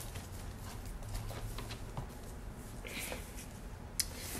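Faint rustling and light taps of paper as sticker books and loose pages are handled and searched through, with one sharp click near the end.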